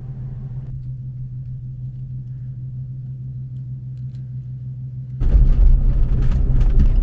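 A vehicle's engine running with a steady low hum. About five seconds in, a sudden, louder, rougher rumble of the vehicle under way on the road takes over.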